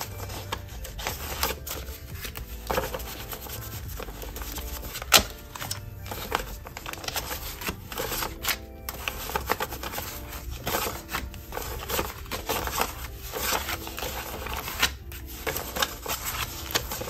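Paper banknotes and envelopes rustling and crinkling as cash is pulled out and handled, in irregular short bursts, with one sharp snap about five seconds in. Soft background music runs underneath.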